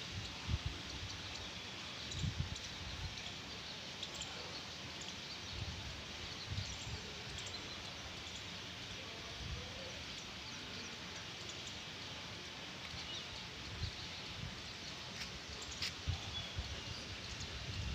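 Faint outdoor background with scattered high chirps of small birds and a few soft low bumps, and a single sharp click near the end.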